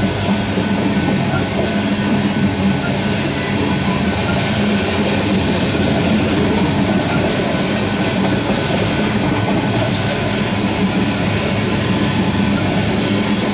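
Freight train of covered hopper cars rolling past: a steady, loud rumble of steel wheels on rail, with a few brief higher-pitched hisses from the wheels.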